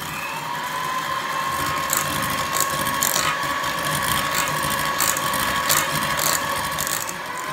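Electric hand mixer running with its twin beaters in a stainless steel bowl, a steady motor whine that rises slightly as it spins up at the start, with the beaters clicking against the bowl as milk is beaten into the creamed butter, sugar and egg batter.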